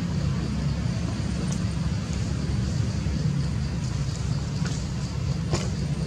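Steady low outdoor rumble with a faint constant high-pitched whine over it, and a couple of faint short clicks about one and a half and five and a half seconds in.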